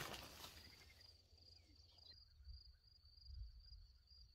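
Faint, steady high-pitched insect trill over a low rumble, in near silence.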